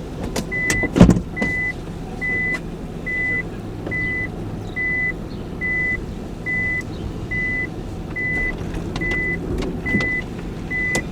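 A car's warning beeper sounding inside the cabin: one steady high beep repeating a little faster than once a second, over the low hum of the car. There is a loud thump about a second in.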